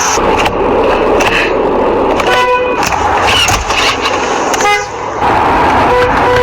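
Car horn sounding in three short toots, about two and a half seconds in, near five seconds and near the end, over steady background noise.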